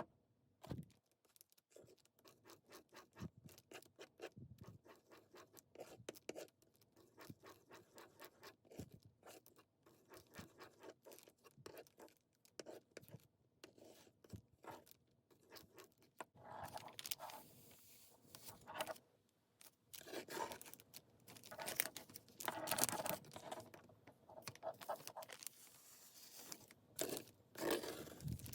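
Modeling paste and acrylic paint being mixed together on a flat surface: quick, repeated scraping strokes, several a second, which turn louder and rougher about halfway through.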